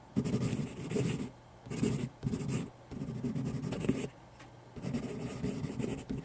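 Writing on paper: a run of about five scratchy strokes, each lasting up to about a second, with short pauses between them.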